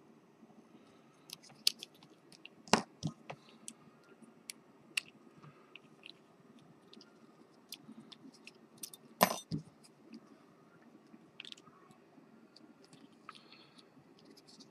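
Scattered small metallic clicks and ticks of lock picks and a tension tool working at an Ikonic deadbolt's pin-tumbler cylinder, with two louder clacks about three and nine seconds in, over a faint steady hum.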